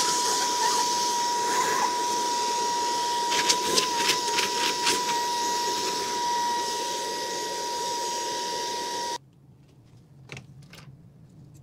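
Small corded handheld vacuum running with a steady high whine over rushing air, sucking dust out of a laptop's copper heatsink and fan housing, with a few clicks as the nozzle knocks the parts. It switches off abruptly about nine seconds in, leaving only faint clicks of the circuit board being handled.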